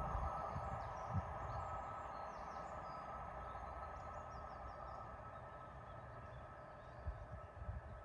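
A diesel locomotive-hauled train receding into the distance, its steady sound slowly fading away, with birds chirping faintly. A few low thumps come about a second in and again near the end.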